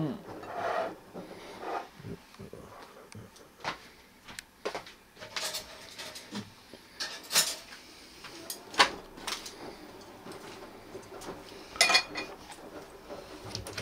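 Ceramic bowls being set down and moved about on a wooden tray table: scattered clinks and light knocks, a few louder ones in the second half.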